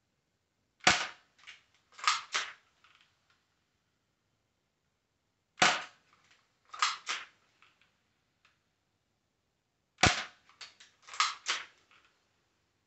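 Airsoft Glock 17 pistol fired three times, about four and a half seconds apart: each a sharp pop, followed by a few lighter clicks and taps.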